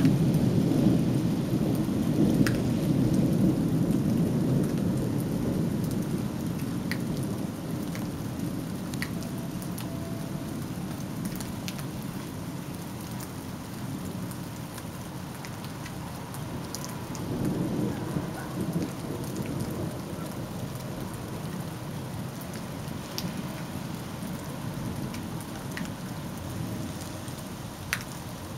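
Thunder rolling and slowly dying away over steady rain, with a second, weaker roll of thunder about two-thirds of the way through. Now and then a drop taps sharply close by.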